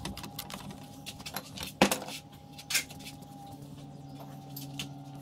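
Metal tools and small metal parts clinking and knocking during hand work on a brush cutter engine: scattered sharp clicks, the loudest a little under two seconds in, over a faint steady hum.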